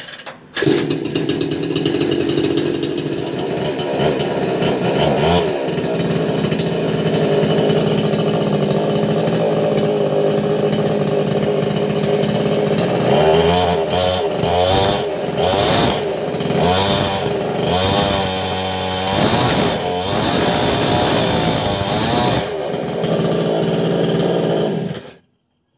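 58 cc two-stroke petrol chainsaw starting on a pull of its recoil starter about half a second in and running. Its engine is revved up and down several times in the middle, settles back to idle, then stops abruptly near the end.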